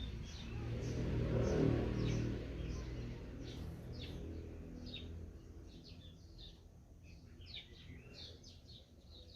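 Small birds calling with many short, high chirps in quick succession. A low rumble is loudest over the first two seconds and fades out about halfway through.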